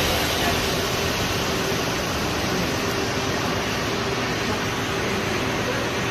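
Steady hum and hiss of a running Mori Seiki SL-25 CNC lathe, with one steady mid-pitched tone in it.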